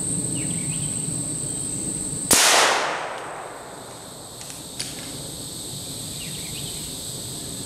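A single rimfire rifle shot about two seconds in: one sharp crack that trails off over about a second. A steady chorus of insects runs underneath, and two faint clicks come a couple of seconds after the shot.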